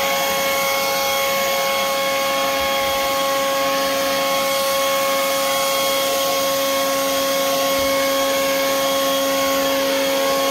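WORX WG584 40V cordless turbine leaf blower running at a steady speed: a steady whine over a rush of air from the nozzle.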